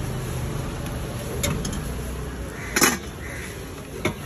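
Street ambience with a steady low traffic rumble, broken by a few sharp clicks and a louder clink about three seconds in, from steel utensils at a dosa stall.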